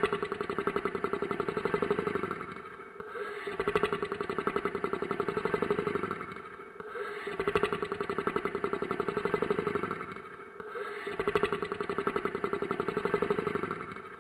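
Monster snoring sound effect: a fluttering, rattling snore that swells and fades in long breaths, four of them about four seconds apart, each broken off by a short pause.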